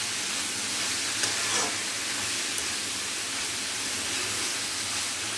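Spring onion greens, moong dal and green peas sizzling steadily in oil in a kadhai over a gas flame, with a long ladle stirring through them and scraping the pan briefly about a second and a half in.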